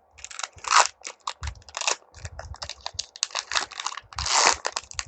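Foil trading-card booster pack wrapper crinkling and crackling as it is handled and opened, in irregular bursts, louder about a second in and again near the end.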